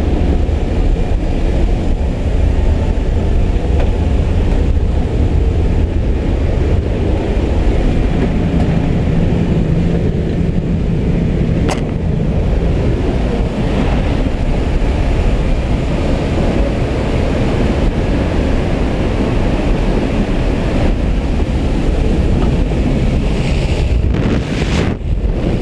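Steady loud drone of a skydiving jump plane's engine and propeller inside the cabin, mixed with rushing wind. A single sharp click comes about halfway through.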